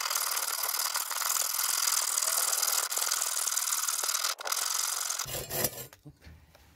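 Hacksaw cutting through the protruding end of a wooden axe handle, trimming it flush with the axe head. It makes a steady rasping that stops about five seconds in.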